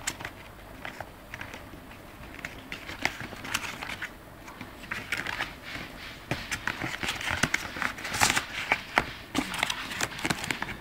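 Cardboard box and paper booklets being handled: rustling with many scattered clicks and taps, busier and louder from about halfway through.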